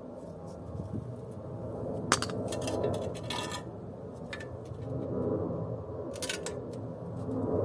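Metal parts of a scrapped air conditioner clinking and scraping as they are handled, with a cluster of sharp clinks in the middle and another near the end.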